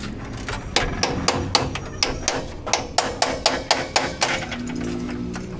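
Rapid hammering on the sheet-steel body of a Maruti Omni van, sharp metal blows at about five a second, easing off near the end.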